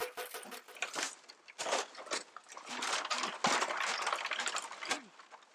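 Stone chopper striking a giant bamboo culm in quick, even strokes that stop about a second in. Several stretches of rustling, scraping noise follow as the deeply cut culm is handled.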